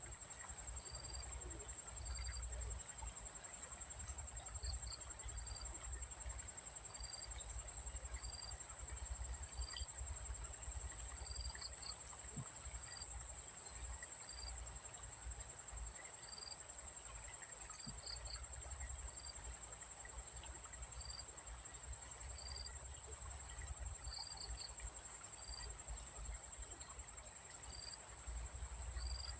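Steady high-pitched buzz of an insect chorus, with a short high chirp repeating about once a second, sometimes in quick pairs or threes, over a low rumble.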